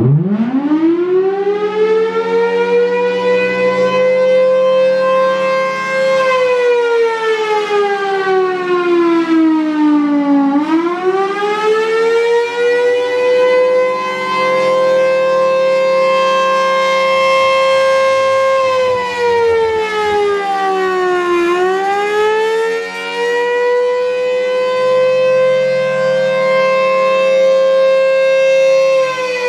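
Outdoor warning siren sounding a wail for its weekly test. Its single strong pitch winds up at the start and holds steady for several seconds. It then falls and rises again twice, and starts to fall once more near the end.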